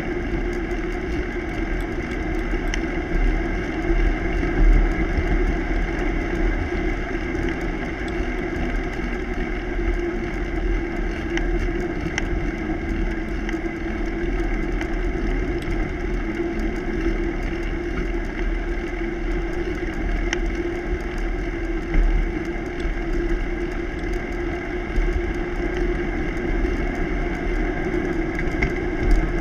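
Steady rolling noise of a bicycle riding along a road, its tyres and drivetrain humming, with wind buffeting the microphone in a low rumble.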